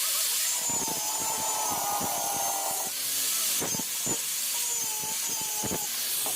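Electric power tool running against material while restoring a kitchen cutting blade, a steady high-pitched grinding noise over the motor's whine. The whine dips in pitch a few seconds in, then comes back.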